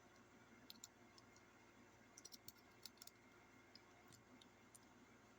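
Faint, scattered metallic clicks of rifle cartridges being pressed one at a time into a Carcano ammunition clip, with a quick run of clicks about two to three seconds in.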